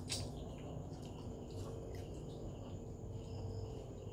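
Quiet room tone: a faint steady high-pitched trill or whine over a low hum, with a few soft clicks, the clearest right at the start.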